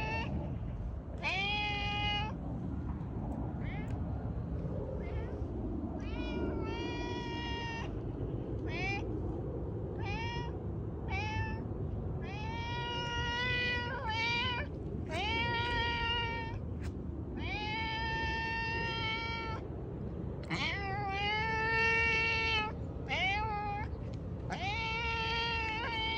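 Domestic cat meowing over and over, well over a dozen meows, mostly short with a few drawn out to about two seconds.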